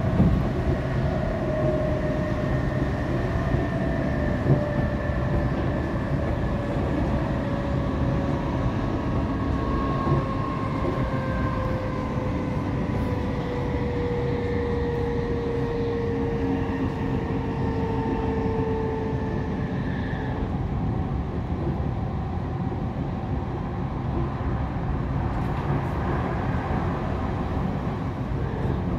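Class 455 electric multiple unit heard from on board: steady wheel-and-rail rumble with the whine of its traction motors. The whine slowly falls in pitch and fades out about twenty seconds in.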